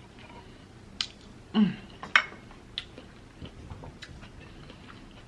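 A few sharp clicks and taps of utensils against dishes during eating, with a short falling-pitch 'mm' hum about a second and a half in.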